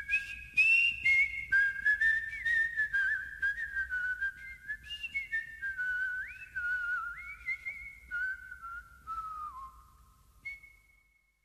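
A person whistling a wandering tune, the pitch sliding between notes and drifting lower as it fades out, with one last short note near the end.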